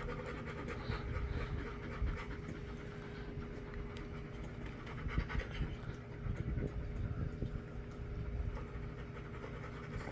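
A dog panting steadily with its mouth open.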